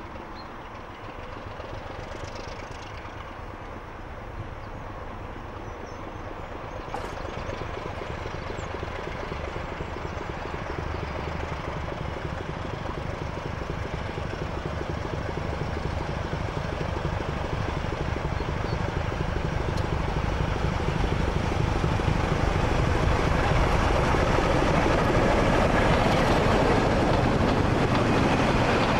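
British Rail Class 25 diesel locomotive, its Sulzer six-cylinder engine running as it hauls a train of coaches towards and past, growing steadily louder throughout.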